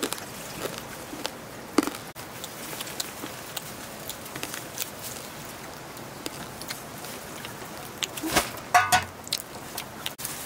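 Dry rice grains rustling and clicking as a hand works them in an aluminium pot, then water poured into the pot to wash the rice. About eight seconds in comes a knock, followed by a short pitched tone.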